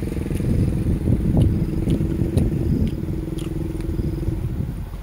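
A small engine running steadily, with irregular low rumbles under it.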